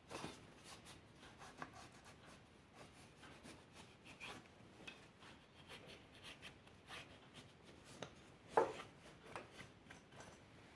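Cloth rag wiping and rubbing the rim of an open motorcycle engine case, a faint run of irregular scuffs and swishes with one sharper scuff late on.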